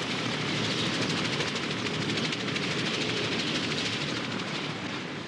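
Soviet Mi-8 transport helicopter running on the ground: a steady, loud rush of turbine and rotor with a fast, even beat of the blades.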